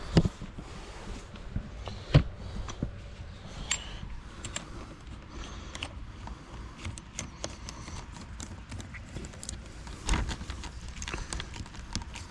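Scattered knocks and clicks, with louder thumps just after the start, about two seconds in and about ten seconds in.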